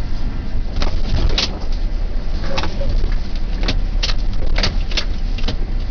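Renault Master turbodiesel truck driving slowly, heard from inside the cab: a steady low engine drone with about eight irregular sharp clicks and knocks over it.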